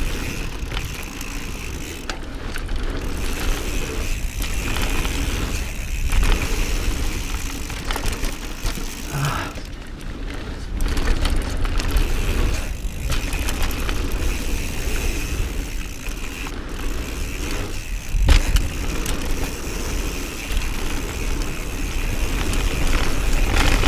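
Mountain bike running fast down a dirt trail: a steady rush of wind on the camera microphone mixed with tyre roar and rattling of the bike, easing off briefly a few times, with a sharp thump about eighteen seconds in.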